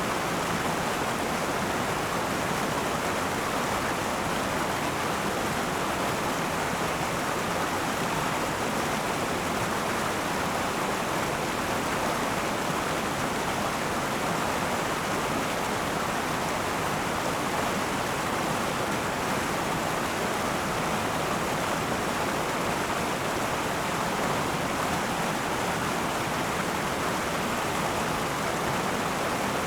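River water flowing steadily over rocks: an even, unbroken rush.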